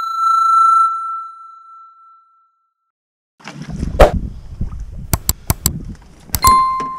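Intro sound effect: a single bright chime that rings and fades over about two seconds, then a short gap. Outdoor sound follows with a loud knock, a quick run of sharp clicks and a second, shorter bell ding near the end, as of a subscribe-button animation.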